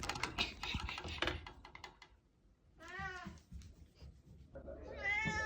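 Domestic cat meowing twice, a short meow about three seconds in and a longer one near the end. Before them comes a run of quick clicks and rustling.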